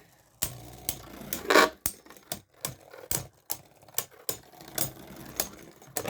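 Beyblade Burst tops, among them Wizard Fafnir Ratchet Rise 1S, spinning and clashing in a stadium: a run of irregular sharp plastic clacks, about two or three a second, with the loudest hit about one and a half seconds in. The hits knock the layers' teeth round a click at a time toward a burst.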